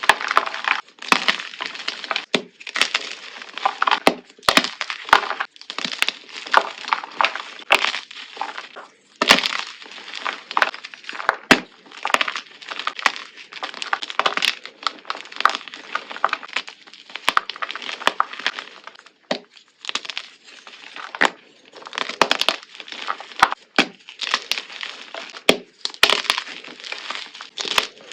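Something brittle and crunchy being crushed again and again: dense crackling and crunching, with many sharp cracks and snaps.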